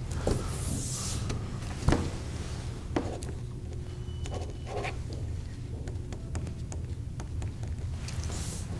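Quiet room tone with a steady low hum, broken by a few small clicks and soft rustles as papers are signed with pens and handled on a table.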